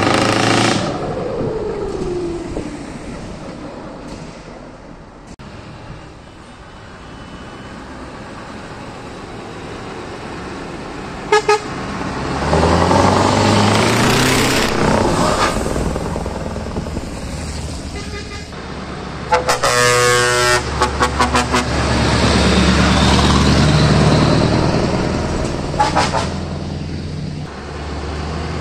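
Scania trucks with open-pipe exhausts driving past one after another, each engine loud as it goes by. Short air-horn toots sound about a third of the way in and again near the end, and a music horn plays a quick run of notes about two-thirds of the way through.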